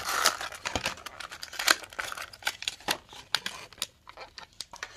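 Plastic blister pack of a die-cast toy car crinkling and tearing as it is broken open: a quick run of sharp crackles and clicks that thins out near the end as the car comes free.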